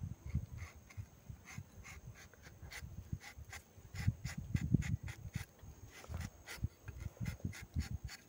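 Rubber-tapping knife shaving a thin strip of bark along the tapping cut of a rubber tree: a scratchy rasping made of many short, irregular clicks. Low thumps run underneath and are loudest about halfway through.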